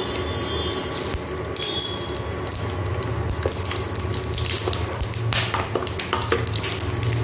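Whole spices, bay leaves and cumin seeds, sizzling and crackling as they are dropped into hot oil in a nonstick wok, with a spatula scraping and stirring them. A steady low hum runs underneath, and the crackles grow thicker from about three seconds in.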